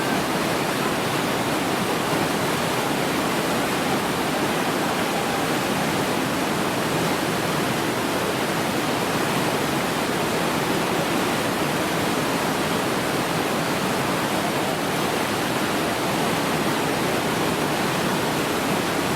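Whitewater of a river slalom course rushing steadily, with no breaks or distinct events.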